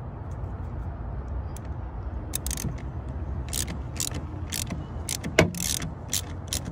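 Ratchet wrench with a 10 mm socket clicking as it loosens the battery's ground terminal nut: a run of sharp, irregular clicks starting about two seconds in, with one louder knock a little past five seconds, over a steady low rumble.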